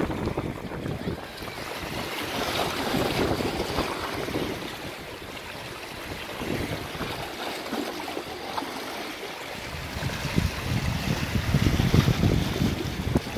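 Wind buffeting the microphone in gusts over the wash of sea waves. The gusts drop off briefly in the middle and come back stronger near the end.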